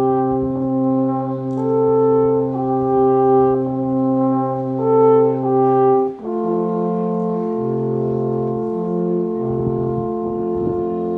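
Three wooden alphorns playing together in harmony, long held notes moving in steps; a short break about six seconds in, then a new phrase begins.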